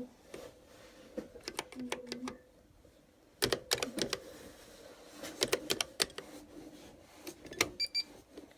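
Panasonic KX-R350 electric typewriter being typed on: irregular runs of sharp key and print clicks over a faint steady hum, with a short beep near the end.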